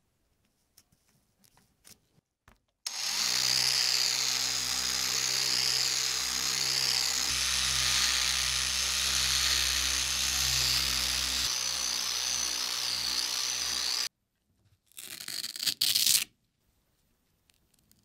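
Small rotary polisher with a foam pad running steadily for about eleven seconds, buffing a cured epoxy resin surface, then stopping abruptly. Two brief bursts of noise follow.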